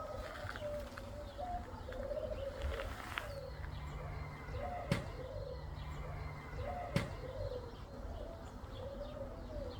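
A pigeon cooing over and over in low, wavering phrases, roughly one a second. Two sharp clicks about two seconds apart stand out near the middle.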